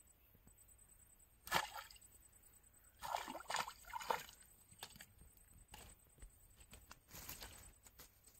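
A small hooked fish splashing at the water's surface as it is struck and pulled in on a pole line. There is one sharp splash about a second and a half in, then a flurry of splashes between three and four seconds, and a few smaller ones after.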